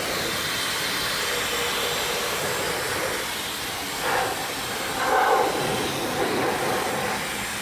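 Dyson Supersonic hair dryer blowing steadily through its concentrator nozzle onto a wet plastic RC car body shell to dry it. The rush of air swells briefly about four seconds in and again just after five seconds.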